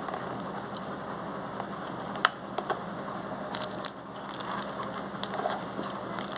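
Handling noise from a fiber-optic patch cord and a utility knife: a sharp click a little over two seconds in and a few lighter clicks and taps after it, over a steady low hum.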